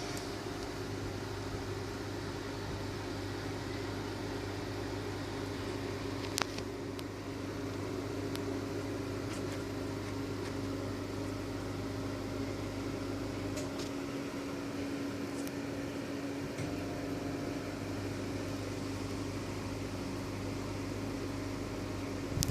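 Steady mechanical hum holding one pitch throughout, with a single sharp click about six seconds in.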